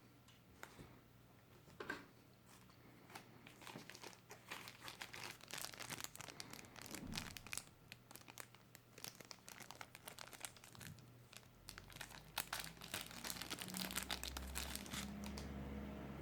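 Packaging being handled during an unboxing, crinkling and rustling in quick irregular crackles that grow denser and louder toward the end. A faint low hum comes in about two-thirds of the way through.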